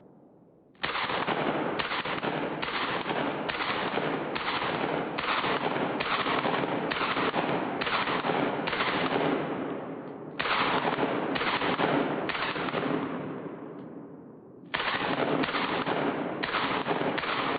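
AR-15 rifle fired in rapid semi-automatic succession, shots about a second apart, with two short breaks and quicker shots near the end.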